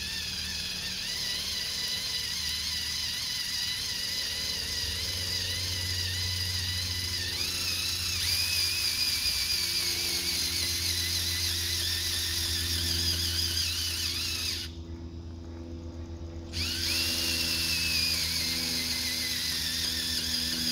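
Handheld power drill turning an auger bit down into hard, dry dirt, its motor whine wavering in pitch as it labours in the tough ground. The drill stops about 15 seconds in and starts again about two seconds later.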